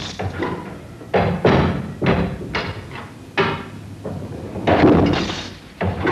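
An irregular series of loud struck knocks, roughly every half second to a second, each one ringing out before the next.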